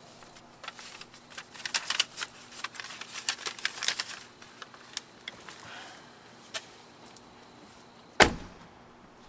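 A quick run of light clicks and rattles over a few seconds, then a few scattered clicks, and one heavy thump near the end.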